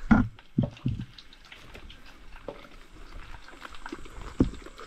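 Close-up eating sounds of a person chewing a mouthful of sushi roll, with wet mouth clicks. There are three sharp low thumps in the first second and another near the end.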